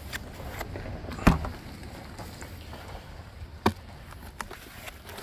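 Knocks and light clatter from lawn-tractor seats being handled and turned over: one sharp knock about a second in and another near four seconds, with smaller ticks between, over a low wind rumble on the microphone.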